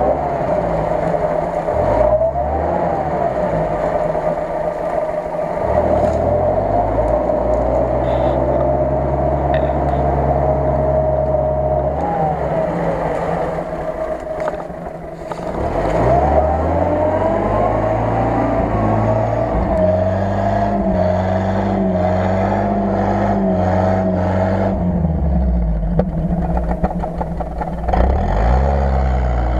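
UAZ-469 engine revving under load as the 4x4 crawls through deep mud, the revs rising and dropping several times. A steady whine runs above the engine and bends up and down with it.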